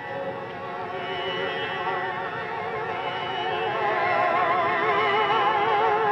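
Music: the slow opening of an old Hindi film song, a held melody with a wide vibrato that grows steadily louder.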